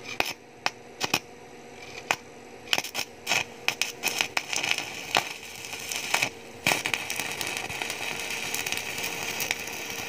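Stick-welding arc from a repaired inverter welding machine. It opens with a handful of sharp snaps as the electrode is struck against the steel, then about three seconds in the arc catches and crackles steadily, with a brief break a little past six seconds. This is the machine's welding test, showing that it melts the rod after the diode and transformer repair.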